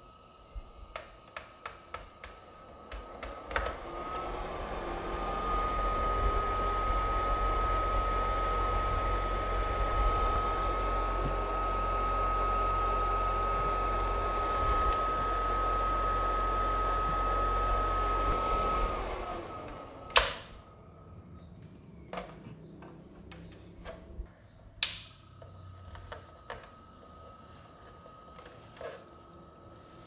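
Desktop mini air cooler fan (Arctic Storm Ultra) speeding up to its strong setting about four seconds in, then running steadily with a whir and a high whine before winding down near the end. Light clicks come before it, and two sharp clicks follow.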